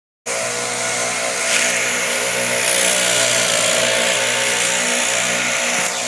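A small two-stroke engine running at a steady speed: a constant drone with a hiss over it, after a brief break at the very start.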